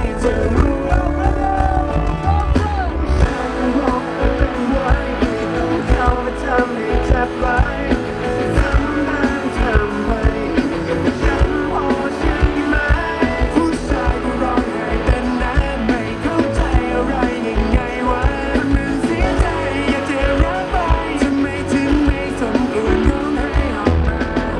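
Pop-rock song performed live by a male vocal group, singing into microphones over a band with drums, loud through the concert sound system.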